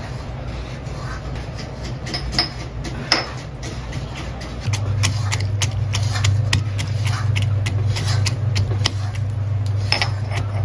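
Cashew nuts being pounded in a green marble mortar with a marble pestle: short stone-on-stone knocks at an uneven pace, a few a second, coming thick from about halfway through. A steady low hum runs underneath and grows louder at the same point.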